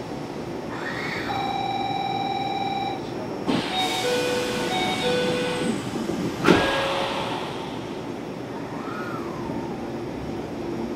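Electric commuter train heard from on board: a steady rumble, with a rising tone that then holds, several short electronic tones in the middle, and a sharp clunk about two-thirds of the way through.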